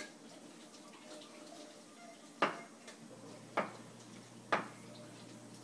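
Chef's knife slicing a banana against a wooden cutting board: a faint knock at the start, then three sharp knocks about a second apart as the blade hits the board. A low steady hum comes on about halfway through.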